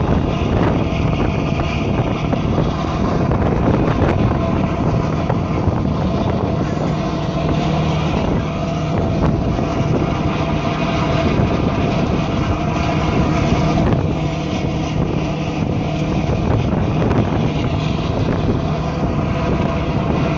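Passenger tour boat's engine running steadily while under way, a constant low drone, with wind buffeting the microphone.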